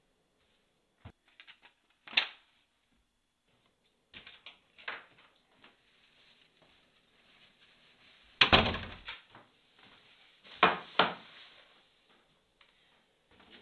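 Scattered kitchen handling sounds: short knocks and the rustle of grocery bags, with a heavy thump about eight and a half seconds in and two sharp knocks around eleven seconds.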